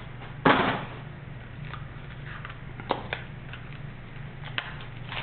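Handling of wrapped trading-card packs: a loud rustle about half a second in, then a few small clicks and faint crinkling of plastic wrap, over a steady low hum.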